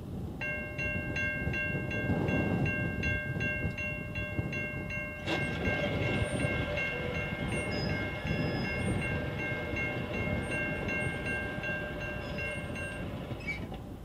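Safetran Type 3 electronic crossing bell starts about half a second in and dings about three times a second while the crossing gates lower. There is a sharp click about five seconds in, as the gate arms begin to drop. The bell cuts off near the end once the gates are down. Wind rumbles on the microphone throughout.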